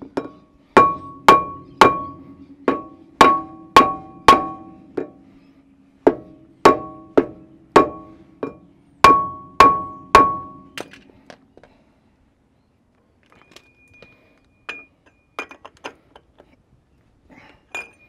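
Rubber mallet beating on the front wheel hub and brake disc of a Toyota LandCruiser solid front axle, about twenty hard blows in quick runs of three to five, each leaving a short ringing tone. This is seating the wheel bearings and closing up the gaps while the bearing preload is set. The blows stop about eleven seconds in, and a few light clicks and taps follow.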